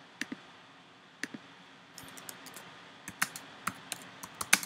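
Typing on a computer keyboard: a few scattered key clicks in the first second and a half, then a quicker run of keystrokes from about two seconds in, the loudest near the end.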